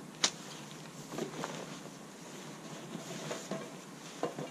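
Camping gear being handled on a groundsheet: a sharp tap just after the start, then a few soft rustles of fabric and stuff sacks, over steady outdoor background noise.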